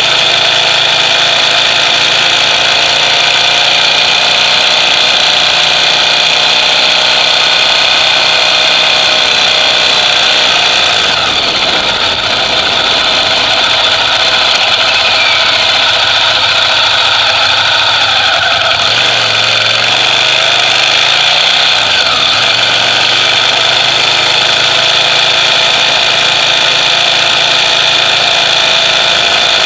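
Ducati Monster EVO's air-cooled V-twin running on its stock exhaust. The note is loud and steady, with a couple of brief pitch changes around the middle.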